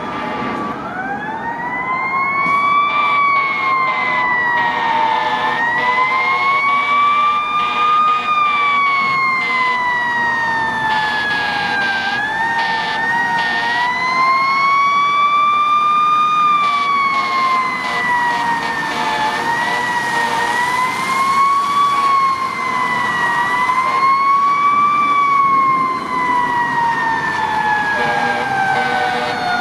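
Fire truck siren wailing, its pitch rising and falling in slow, uneven sweeps of a few seconds each.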